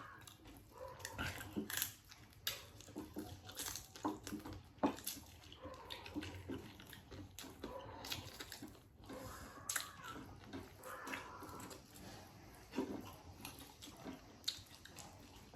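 Close-up eating sounds: chewing and biting food, with many short, irregular clicks and smacks.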